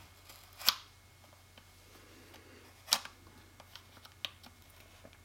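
A knife cutting open the packaging of a RAM kit: two sharp crackling clicks about two seconds apart, then a few faint ticks, over a low steady hum.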